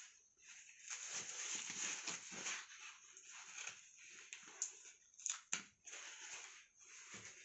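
Rustling and handling of TV packaging (cardboard, foam and plastic), irregular, with a few sharp clicks around the middle.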